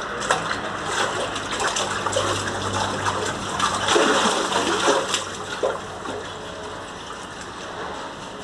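Water splashing and sloshing in a concrete fish tank as hands grab at a fish in the water. The splashing is irregular and heaviest around four seconds in, then settles down after about five and a half seconds.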